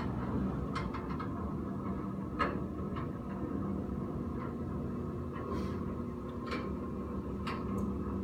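A steady low mechanical hum with a few light clicks scattered over it.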